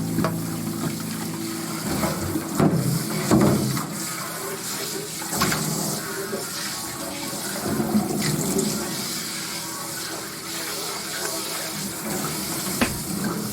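Water running from a kitchen tap, with scattered knocks and clinks of things being handled in the sink.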